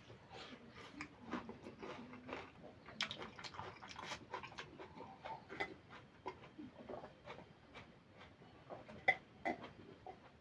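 Close-miked chewing of curry and rice, with many irregular wet mouth smacks and clicks.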